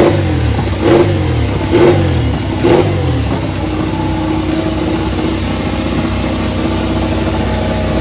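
Ducati Desmosedici MotoGP bike's V4 engine being warmed up on stands: a few sharp throttle blips about a second apart, then it settles into a steady idle after about three seconds.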